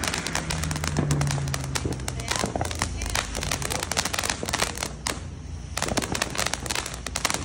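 Ground fountain fireworks spraying sparks with dense, rapid crackling. The crackling eases briefly about five seconds in, then picks up again.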